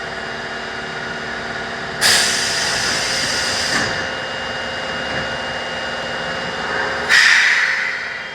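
Osaka Metro 22 series subway car standing with a steady electrical hum, while compressed air hisses out twice: once about two seconds in for nearly two seconds, and again near the end, fading away.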